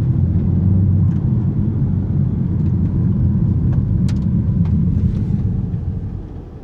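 BMW M3 Competition's S58 twin-turbo straight-six running steadily under way, a deep low rumble mixed with road noise and a few faint ticks. It falls much quieter near the end.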